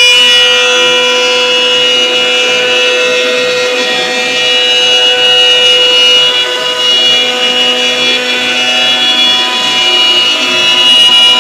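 CNC router spindle running and cutting, a steady high whine made of several held tones over a cutting hiss, swelling slightly in level now and then.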